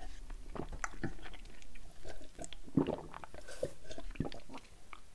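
A man gulping a drink down from a paper cup: a string of irregular swallows and wet mouth clicks.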